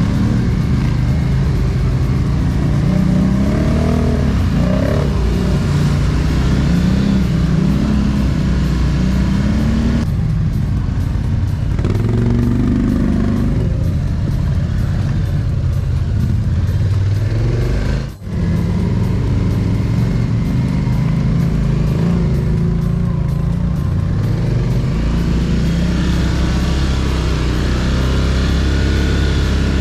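ATV (quad bike) engines running on a dirt trail, their pitch rising and falling as the throttle is worked. The sound drops out briefly about eighteen seconds in.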